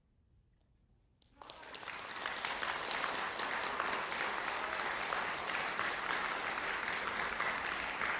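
Near silence, then an audience breaks into applause about a second and a half in, quickly building to steady clapping.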